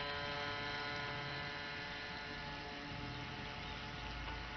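Radio-controlled model cabin cruiser's motor running at speed with a steady whine, growing gradually fainter as the boat moves away.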